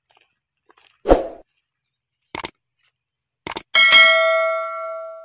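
Subscribe-button animation sound effect laid over the video: a thump about a second in, then mouse clicks, then a bell ding that rings out and fades away.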